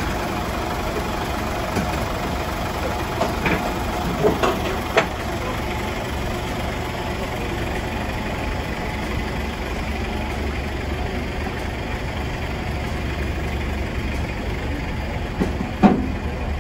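Truck engine idling steadily, with a few short knocks over it, the loudest near the end.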